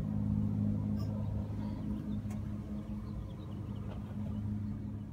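A steady, low engine hum, like a vehicle idling, fading away near the end, with a few faint clicks.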